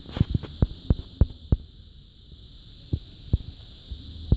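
Handling noise as the metal CD mechanism is held and moved: a quick run of about six light clicks in the first second and a half, then three single clicks, over a steady faint hum.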